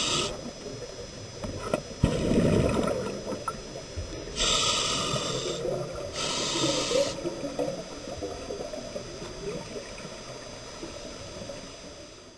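Scuba diver's regulator breathing heard underwater: inhalations hiss through the regulator twice in the middle, about a second each, and exhaled bubbles gurgle and rumble between them. The sound slowly gets quieter toward the end.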